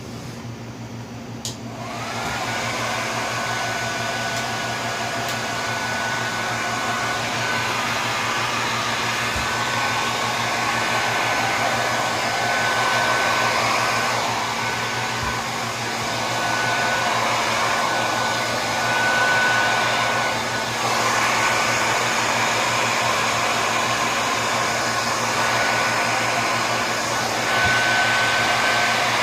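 Handheld blow dryer switched on about two seconds in, then blowing steadily with a thin whine and a rushing airflow that swells and eases a little as it moves over the canvas, spreading poured acrylic paint.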